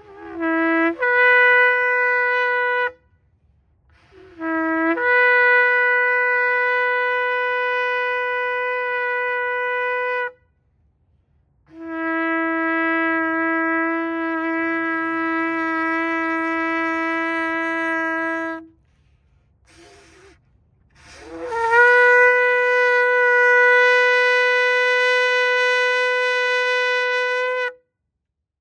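Ram's-horn shofar blown in four long held blasts with short breaks between them. Most blasts start on a brief lower note and jump up to a steady higher pitch; the third is held on the lower note throughout.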